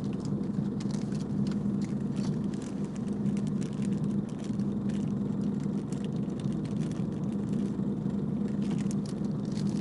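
A boat's engine running steadily, heard from on board as a low drone, with irregular crackling noise over it.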